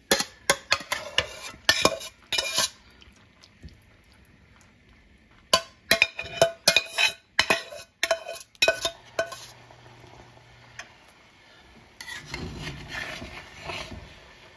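A metal spoon clinking and scraping against metal pans as curry masala is spooned out of a pan onto rice in a pot. The sharp clinks come in two clusters, followed near the end by a softer, longer scraping as rice is spread over the top.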